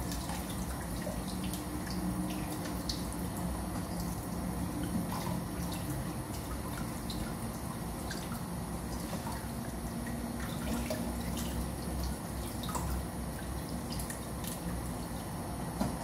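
Kitchen tap running in a thin stream onto hands and a basin of eggs in the sink, with splashing and scattered light clicks as the eggs are handled and scrubbed.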